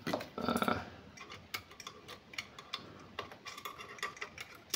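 Small screws being undone by hand inside the sheet-metal chassis of a radio transceiver: irregular small metallic clicks and ticks, with a brief busier scrape about half a second in.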